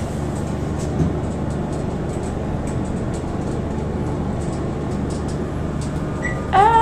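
Steady, even rumbling noise of wind buffeting the camcorder microphone on an exposed balcony. A held musical note with overtones comes in just before the end.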